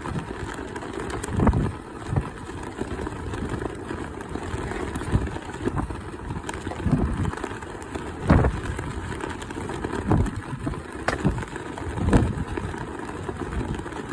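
Strong wind blowing across the microphone: a constant low rumble broken by repeated sudden gusty buffets.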